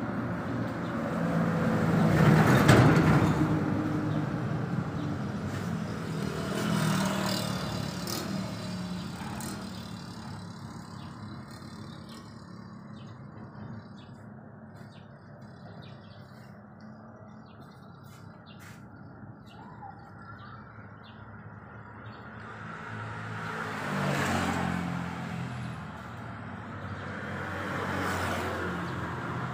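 Road traffic: several vehicles pass one after another, each swelling and fading, the loudest about two to three seconds in, with a quieter lull through the middle.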